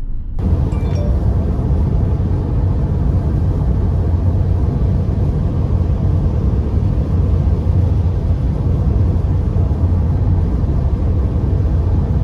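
Steady low rumble from inside a car driving through heavy rain, with road noise and rain on the body blended into one dense noise. It comes in suddenly just after the start.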